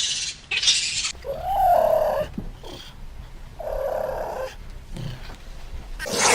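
An animal vocalizing: a few short rasping, breathy sounds, and a single pitched call about a second in that rises and then falls.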